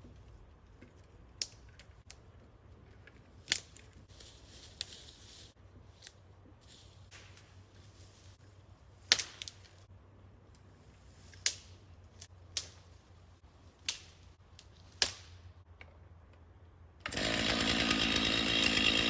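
Scattered sharp cracks of twigs and branches snapping as brush is cleared, about eight in all. About 17 seconds in, a Stihl chainsaw starts suddenly and runs loudly.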